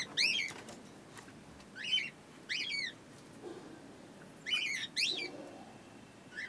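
Short, high bird chirps, each rising and falling, repeated every second or two and mostly in pairs, from the birds in a pigeon loft.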